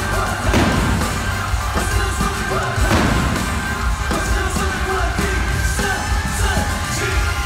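Live pop concert music heard from the arena crowd: a full band with singing and a heavy, bass-laden beat.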